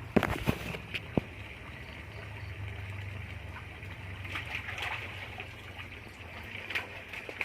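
Water trickling and gurgling over a steady low hum, with a few sharp clicks in the first second or so and another near the end.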